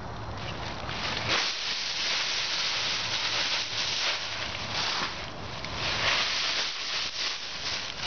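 Dry fallen leaves crunching and rustling in uneven spurts as a dog bounds and digs through a deep pile of them.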